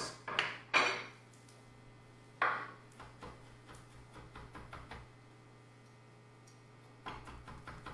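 Chef's knife mincing garlic on a wooden cutting board: a few single knocks, then runs of quick light taps, about five a second, from rocking strokes, with a short pause between runs.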